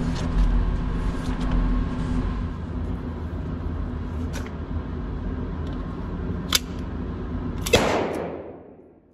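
Steady low rumble with a faint sharp crack about two-thirds of the way through and a louder one near the end: a Canik SFX Rival 9mm pistol firing, its report echoing briefly before the sound fades away.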